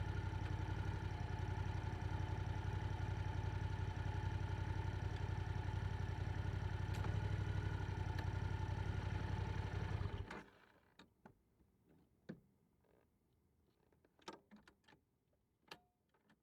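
Yamaha R7 motorcycle with an Akrapovic exhaust idling steadily, then shut off, its sound cutting out abruptly about ten seconds in. A few faint scattered clicks and taps follow.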